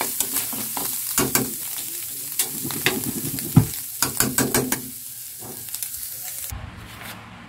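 Ground pork and diced carrots frying in a pan with a steady sizzle, while a spatula scrapes and taps against the pan as it stirs. The sizzle cuts off suddenly near the end.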